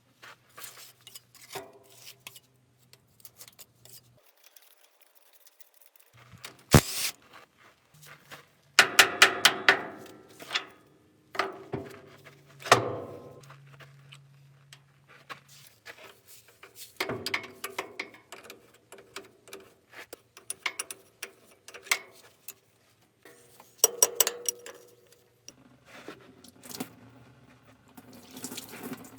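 Metal tools and parts clinking and knocking at irregular intervals during repair work on a wheel loader's steering cylinder, some strikes ringing briefly, over a faint steady low hum.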